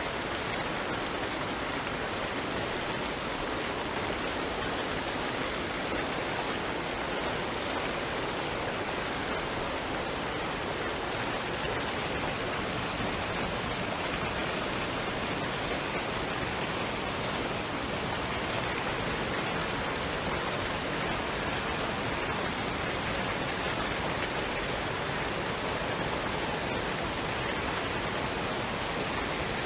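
Waterfall and stream running water: a steady, unbroken rush with no change in level.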